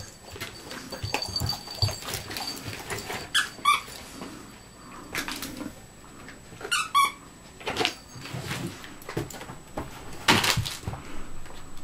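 Border collie chewing a squeaky toy: the toy squeaks twice, a few seconds apart, among small chewing clicks, with a burst of crinkling plastic treat packets near the end.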